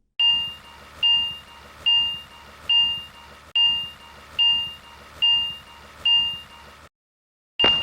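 Japanese railroad crossing warning bell ringing "kan-kan": eight evenly spaced strikes a little under a second apart, each a clear ringing tone that fades, cutting off about seven seconds in.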